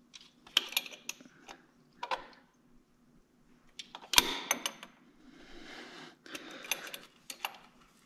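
Metal hand tools clicking and clanking against fittings in a truck's engine bay, a scattered string of sharp clinks with the loudest clank about four seconds in, and stretches of scraping and rustling in between.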